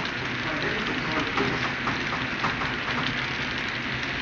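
HO-scale model freight train of steel-coil flat cars rolling past close by: a steady rolling hiss of its wheels on the track, with frequent light clicks.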